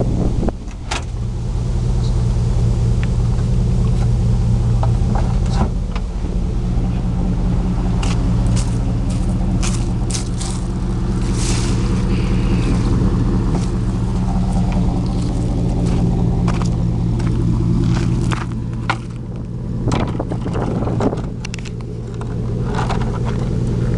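Chevrolet Silverado's 4.8-litre V8 running steadily through a new stainless steel resonator muffler with a built-in H-pipe. Footsteps crunch over leaves and gravel, with scuffs and clicks close to the microphone.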